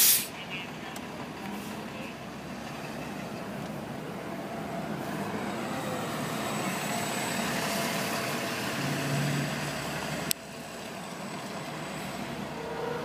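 City transit bus driving slowly past close by, its engine and tyre noise swelling toward the middle and easing off, after the tail of an air hiss right at the start. A sharp click comes about ten seconds in.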